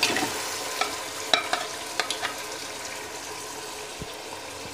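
Yogurt-marinated beef going into hot oil and masala in a cooking pot and frying: a burst of sizzling as the meat lands, easing into a steady frying hiss, with a few sharp knocks against the pot in the first couple of seconds.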